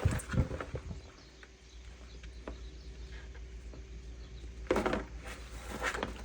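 Hands handling and rubbing seasoning into a raw fish: a few soft knocks, then a brief louder rustle or scrape about three-quarters through and another near the end, over a faint steady hum.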